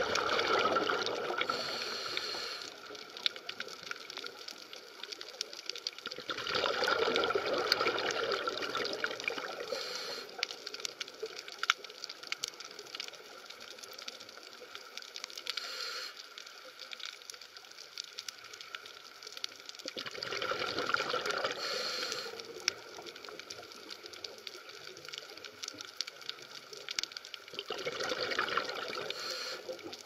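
Bubbling, gushing water heard underwater, swelling up four times for about three seconds each over a faint steady crackle of clicks.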